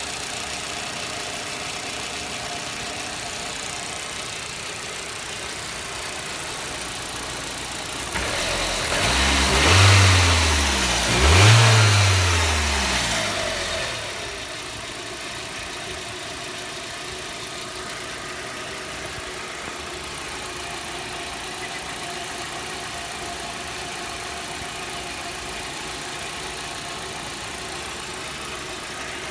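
Audi 80 Cabriolet 1.8 four-cylinder engine idling steadily, revved twice in quick succession about a third of the way in, each rev rising and falling back, before it settles to idle again. The owner asks whether these engine noises are normal.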